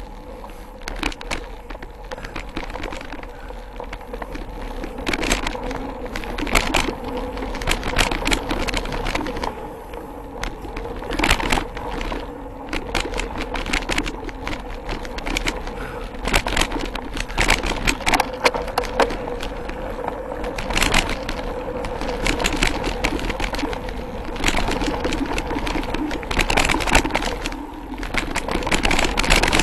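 Mountain bike rolling along a dirt trail: steady tyre and riding noise with frequent sharp clicks and knocks as the bike rattles over bumps and roots.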